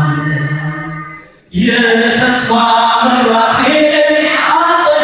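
Church choir singing an Ethiopian Orthodox mezmur (hymn) without instruments. A low held note fades away about a second and a half in, then the voices come back in together on the next phrase.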